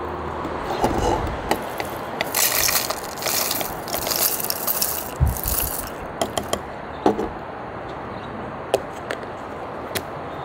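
Dry, crispy kelp pieces rustling and scraping as they are tipped from a glass bowl into a cardboard snack can, with a dull knock about five seconds in. This is followed by several sharp plastic clicks as the can's lid is handled and pressed on.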